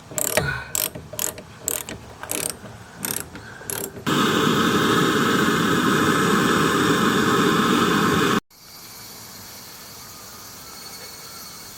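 Irregular mechanical clicks and knocks for about four seconds, like hand-tool work. Then a loud steady noise starts suddenly, cuts off about eight seconds in, and gives way to a quieter steady noise.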